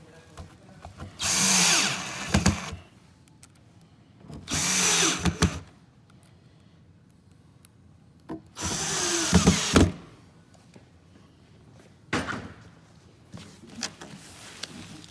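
Power drill driving screws through the plywood back into the cabinet's ceiling and floor: three runs of about a second each, each ending in a few sharp clicks as the screw seats.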